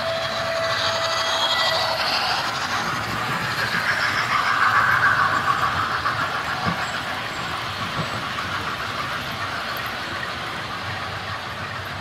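Hornby Merchant Navy 35023 model steam locomotive with a DCC sound decoder, its onboard speaker playing steam locomotive running sounds, mixed with the rolling rumble and clatter of model coach wheels on the track as the train passes. It is loudest about four to five seconds in and eases off as the last coaches go by.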